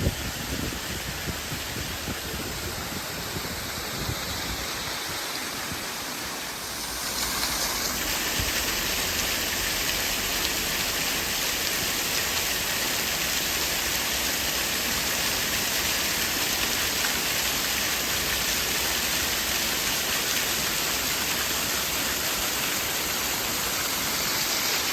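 Steady rushing noise of running water, growing louder about seven seconds in and then holding level.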